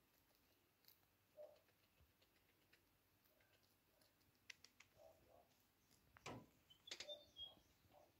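Very quiet, with faint scattered clicks and small crunches as a degu nibbles a French fry held in its paws. A louder knock comes about six seconds in, followed by a short cluster of clicks.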